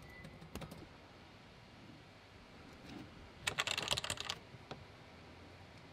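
Keys on a Blackmagic DaVinci Resolve Speed Editor being pressed: a quick run of key clicks about three and a half seconds in, lasting about a second, after a few fainter clicks near the start.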